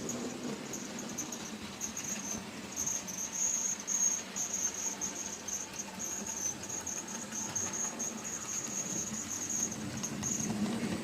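Model train running on the track: wagon wheels rolling with a steady low rumble, over a high-pitched chirping tone that keeps coming and going.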